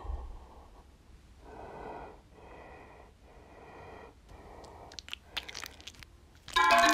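Four breathy, wheezing breaths about a second apart, then a run of small sharp clicks, with music coming in loudly near the end.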